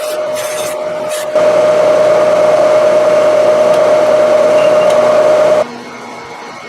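Bridgeport-head milling machine running with a steady whine. It grows louder with added cutting noise about a second and a half in, then drops away abruptly near the end.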